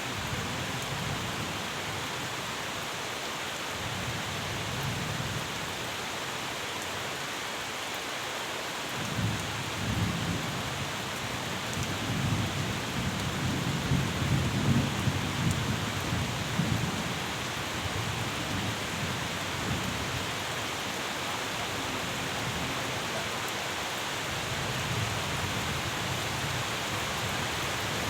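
Steady rain falling, with low rolling thunder that swells about a third of the way in, rumbles for several seconds and dies away, then murmurs faintly again near the end.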